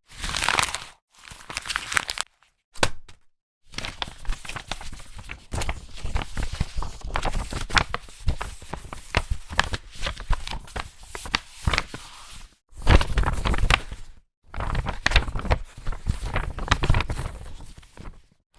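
Paper being torn, crumpled and rustled by hand, in several separate takes divided by brief silent gaps: a short tear at the start, a few sharp crackles, then long stretches of dense crinkling and crumpling.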